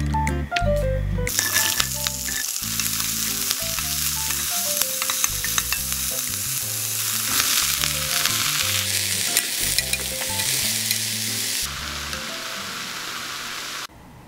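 Onion and green onion sizzling as they stir-fry in hot cooking oil in a frying pan, with clicks of the stirring. King oyster mushroom pieces go in partway, and the sizzle eases about 12 seconds in and falls away near the end. Soft background music with piano notes plays underneath.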